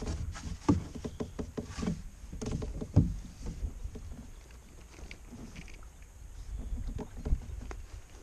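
Scattered knocks, bumps and small clicks against a plastic fishing kayak's hull and gear as a caught bass and its measuring board are handled, with a few louder thumps among them.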